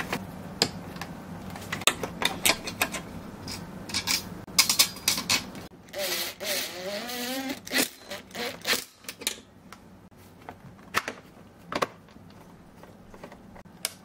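Irregular sharp clicks and knocks of plastic and metal parts being handled while a computer-style cooling fan is fitted onto a mini fridge's heatsink, with a short wavering pitched sound about six seconds in.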